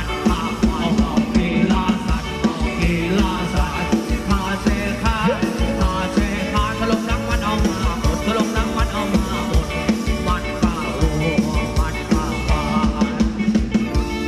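Live band playing upbeat Thai ramwong dance music over a PA: drum kit keeping a steady beat, keyboard, and a wavering melody line on top.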